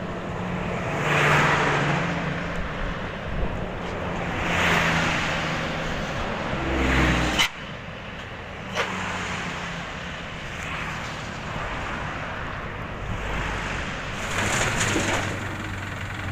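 Diesel engine of heavy construction machinery running, its sound rising and falling several times. Two sharp knocks come about halfway through.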